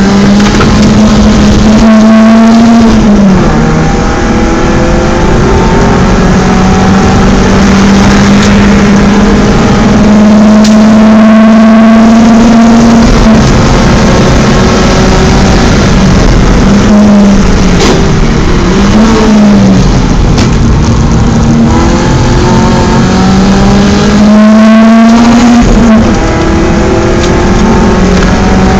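BMW 318is four-cylinder engine running hard on a race circuit, very loud, with its pitch climbing through the gears. It drops and swings back briefly a few times, about three seconds in, around the middle and near the end, as it comes off the throttle and changes gear.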